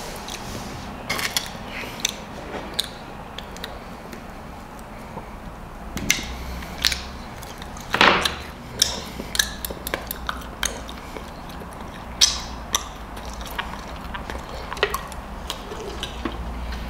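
Scattered small clicks, taps and rustles of hands working small objects and a small metal tool at a tabletop, with a sharper click about eight seconds in and another about twelve seconds in.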